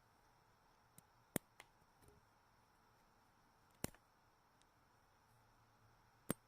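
Sharp, isolated clicks from handling unboxing packaging: three loud ones, about a second and a half, four seconds and six seconds in, with a few fainter clicks around the first, and near silence in between.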